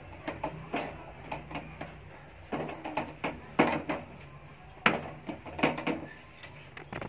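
Irregular light knocks and clinks of stainless steel kitchenware as steamed momos are lifted out of an idli steamer and set down on a steel plate, loudest a little past the middle.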